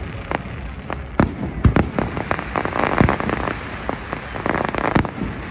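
Fireworks display: an irregular run of sharp bangs and crackle, several a second, with louder booms about a second in, near three seconds and near five seconds.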